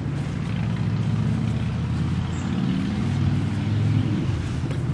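A motor vehicle's engine running: a steady low drone that swells slightly about three to four seconds in.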